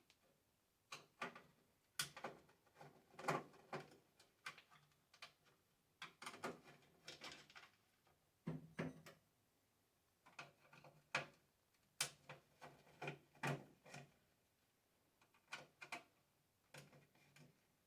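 Irregular clicks and light knocks of plastic wiring connectors being unplugged and handled on a gas boiler's controller module.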